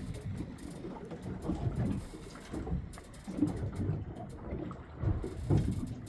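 Wind buffeting the microphone aboard a fishing boat at sea: a low, uneven rumble that swells and dips in gusts.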